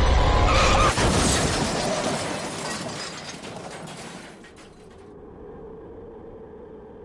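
Car crash: a sudden impact with glass shattering and crackling debris, fading out over about four seconds.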